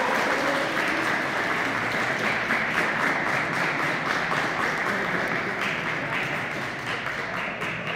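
Crowd applauding, a dense steady clapping that eases off near the end.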